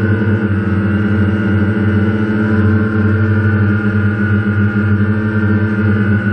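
DJI Phantom quadcopter's motors and propellers in flight, heard from the GoPro mounted on the drone: a loud, steady buzzing hum of several held tones, wavering slightly in pitch.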